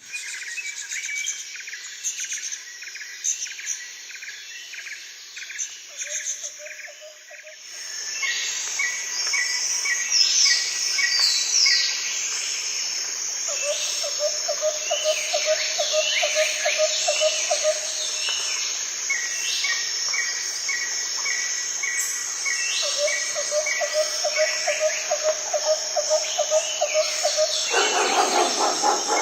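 Several songbirds singing and calling, with rapid runs of repeated chirps and trills overlapping. About eight seconds in, a steady hiss of background noise comes up under the birdsong.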